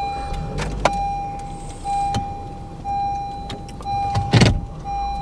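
A car's warning chime sounds a steady tone repeated about once a second over a low engine rumble. A sharp click comes about a second in and a heavy thump about four seconds in.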